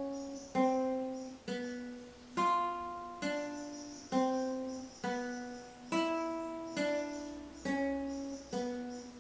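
Acoustic guitar playing a slow single-note left-hand finger exercise on the top two strings: about ten separate plucked notes, roughly one a second, each left to ring and fade before the next. It is played deliberately slowly, for a clean, full tone from each finger set right beside its fret.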